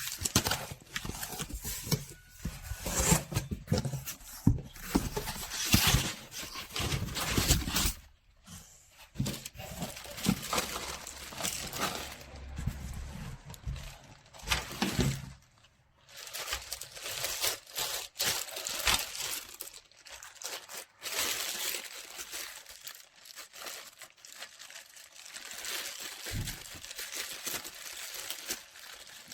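Irregular crinkling and rustling, broken by small clicks and knocks, with brief lulls about a third and halfway through.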